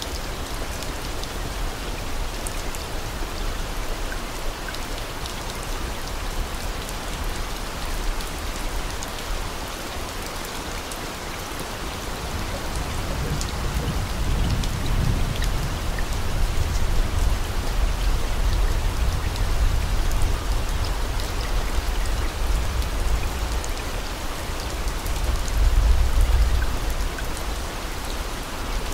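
Steady rain falling, a dense hiss speckled with individual drops, with a low rumble swelling up about halfway through and again near the end.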